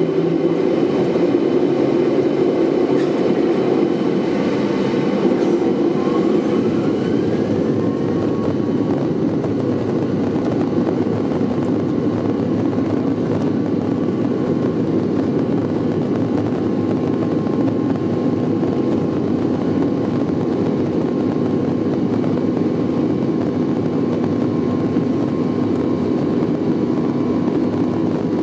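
Jet airliner's turbofan engine heard from inside the cabin beside the engine as the plane moves along the ground: a steady loud rumble, with a whine that rises in pitch about six to eight seconds in and then holds.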